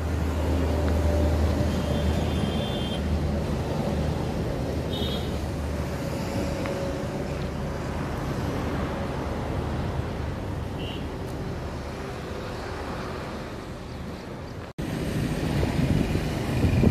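A truck's diesel engine idling with a steady low rumble. A few brief high chirps sound over it. Near the end the sound cuts abruptly to a louder, different background.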